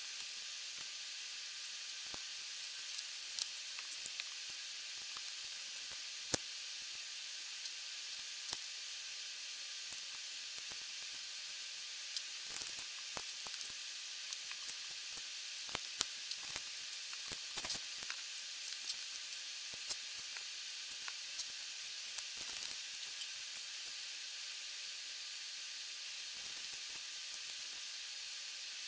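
Plastic Lego bricks being handled and pressed together: scattered light clicks, a dozen or so, over a steady high hiss.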